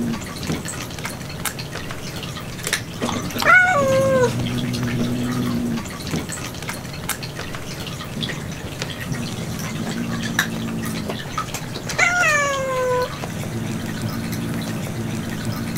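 Cats in a standoff: a low, drawn-out growl in spells, broken twice by a short yowl that falls in pitch, about three and a half seconds in and again about twelve seconds in.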